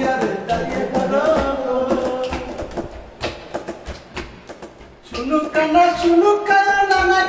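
A man singing a Bhawaiya folk song over simple accompaniment with sharp percussive taps. The singing fades after about two and a half seconds and comes back louder about five seconds in.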